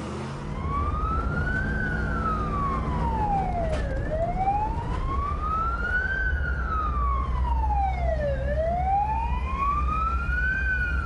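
Emergency vehicle siren wailing, its pitch slowly rising and falling about every four and a half seconds, over the low rumble of the vehicle's engine and road noise.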